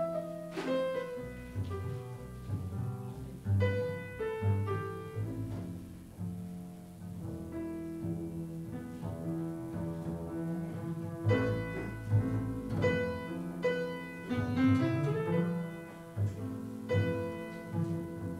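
A grand piano and an upright double bass playing a duet, the bass carrying a moving low line under the piano's chords and melody.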